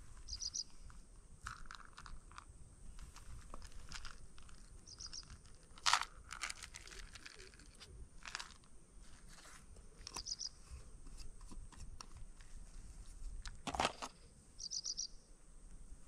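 Scattered crunching and crackling handling noises, with a sharp crack about six seconds in and another near the end. A short high chirp of about four quick notes repeats about every five seconds.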